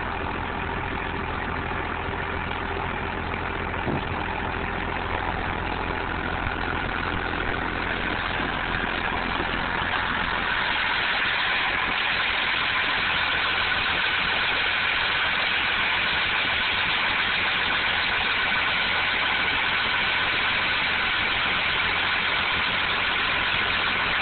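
Perkins diesel engine in a 1963 Ford crew cab truck, idling steadily. About ten seconds in it grows a little louder, with a brighter, higher note.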